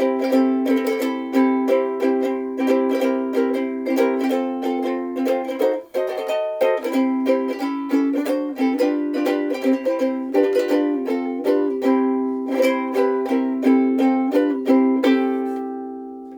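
LUNA MV-2S soprano ukulele, with a solid Honduras mahogany body and black nylon strings, played in fast rhythmic strokes with a brief break about six seconds in. It ends on a chord that rings out and fades away.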